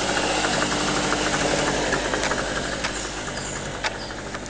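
A generator engine running steadily with a fast, even knocking beat, fading as the distance from it grows. A single sharp click comes near the end.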